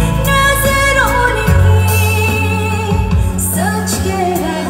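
A woman singing a pop song into a microphone over an amplified backing track with a steady bass line. Her voice slides between notes.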